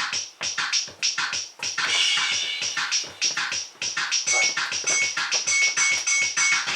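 Electronic music with fast scratch-like sounds over a quick beat; short high beeps repeat several times in the second half.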